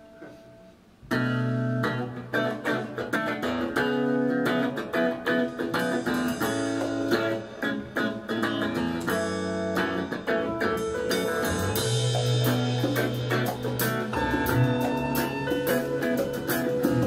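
Live band music: after a fading held chord, the full band comes in about a second in, with electric guitar over bass and drums.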